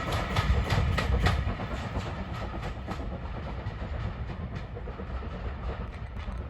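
Railway wagon wheels clicking over rail joints with a low rumble, the clicks fading as the train moves away.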